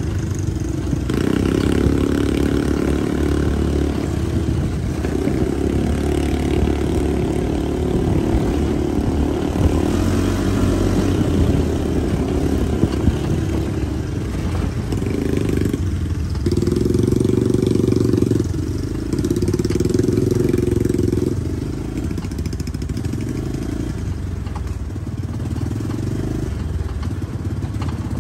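ATV engine running as heard from aboard the moving vehicle, the throttle opening and easing off in spells of a few seconds each over a dirt trail.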